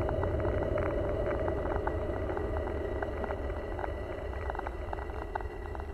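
A steady deep rumble under a layer of noise, with two faint steady high tones and irregular light crackles scattered through it.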